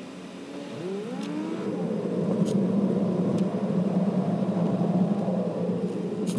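Car engine and road noise heard from inside the cabin as the car pulls away and speeds up. The engine pitch rises about a second in, then settles into a steady drone, with a few faint clicks.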